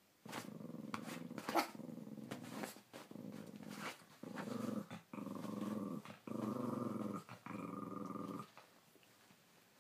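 Small dog growling in a run of long, unbroken growls, with a few sharp clicks in the first three seconds; the growling stops near the end.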